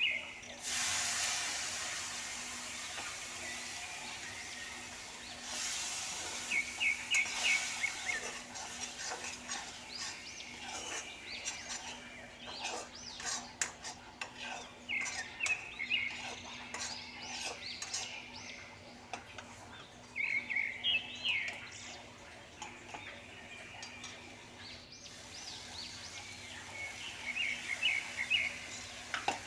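Masala sizzling in a hot kadai, the hiss rising sharply about a second in and again a few seconds later, while a metal slotted spatula scrapes and clatters against the pan as it is stirred. A bird chirps in short quick runs several times.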